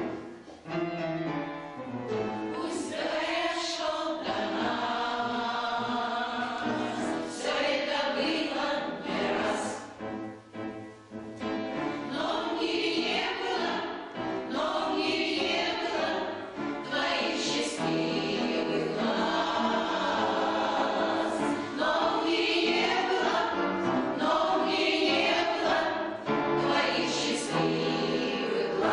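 Choir of older amateur singers, a veterans' chorus, singing a song in sustained phrases, with a short break between phrases about ten seconds in.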